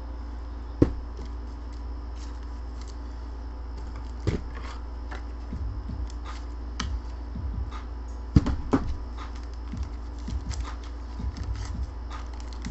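Trading cards and hard plastic card holders being handled on a table: scattered light clicks and rustles, with sharp knocks about a second in and at about four seconds, and a louder pair about eight and a half seconds in.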